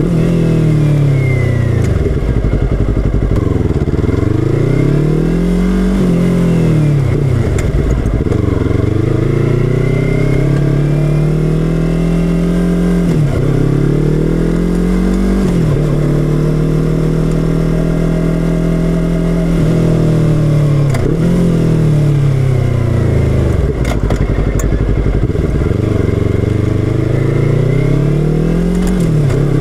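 Yamaha R3's parallel-twin engine through an Akrapovič slip-on exhaust, heard close up from the tail section while riding. The engine note climbs and drops back again and again as the bike pulls away, shifts and slows.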